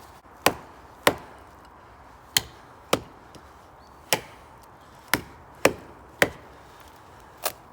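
Large tracker-style knife chopping into a frozen tree trunk: nine sharp chops at an uneven pace of about one a second.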